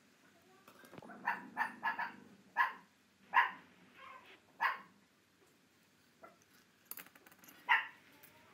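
A dog barking: a run of short barks a little over a second in, then single barks spaced irregularly, the last one near the end.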